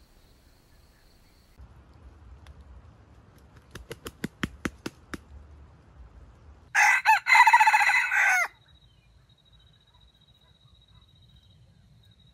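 Red junglefowl rooster crowing once, about seven seconds in: a short, clipped crow that breaks off briefly near its start, the stuttering crow. A couple of seconds before it comes a quick run of about eight sharp clicks.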